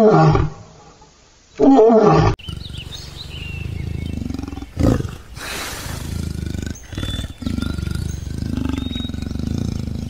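A lion gives two loud roar grunts that fall in pitch in the first two seconds. Then comes a leopard's quieter low calls, with a brief louder call about five seconds in.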